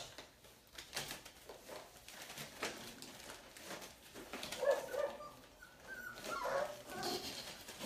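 Young puppies giving short little cries, a few about halfway through and more near the end, with faint clicks and scuffles throughout.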